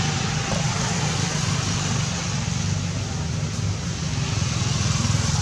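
Steady low rumble with an even hiss above it: outdoor background noise.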